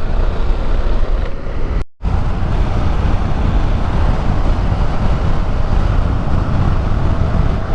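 Wind and road noise rushing over the microphone of a moving motorcycle, steady and loud, cutting out for a moment about two seconds in.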